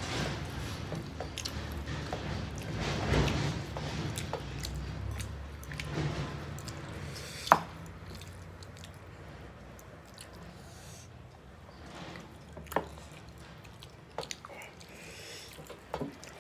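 Two people chewing and squishing rice and curry as they mix it by hand on steel plates, with a few sharp clicks. The loudest click comes about halfway through.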